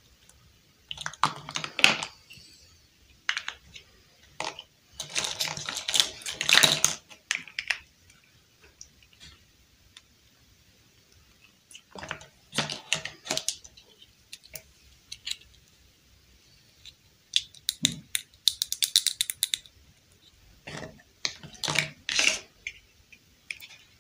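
Small hard-plastic dollhouse furniture pieces clicking and clattering as they are handled, in about five bursts of quick clicks with quiet pauses between them.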